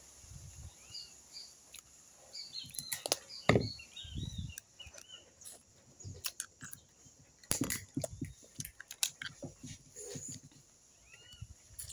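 Cooked crab shells cracking and snapping as they are broken open and eaten, a string of sharp cracks, the loudest about three and a half seconds in, among softer chewing and handling noises. Small birds chirp faintly in the background.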